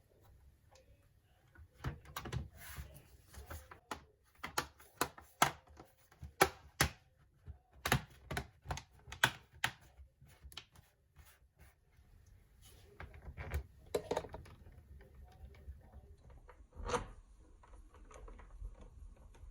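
Hands refitting a laptop's battery and bottom case: a quick run of sharp plastic clicks and taps, then softer handling noises and one last click near the end.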